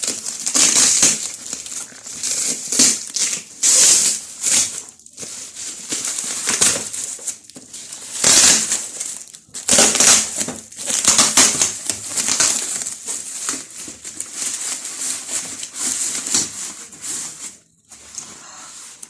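Packaging being handled and pulled apart while a ring light and phone stand are unboxed: loud, irregular crinkling and rustling bursts that come one after another, with short pauses between them.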